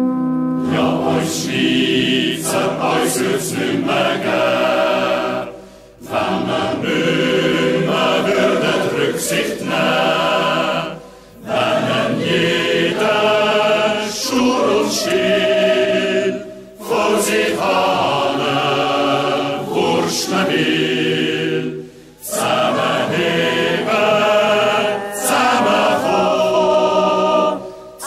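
A large mixed choir of men, women and children singing a slow song, in phrases of about five seconds with brief breaks between them.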